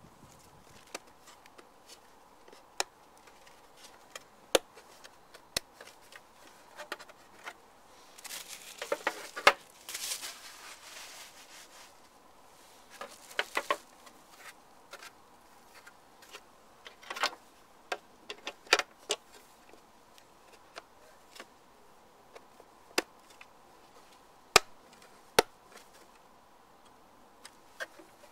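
Plastic alarm box housing parts being handled: scattered clicks and knocks of hard plastic covers and a lens being picked up, turned and set down, with a few seconds of rustling near the middle.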